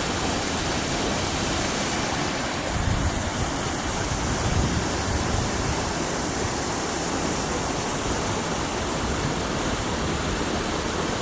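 Water pouring over a mostly frozen waterfall through open patches in the ice: a steady, even rush.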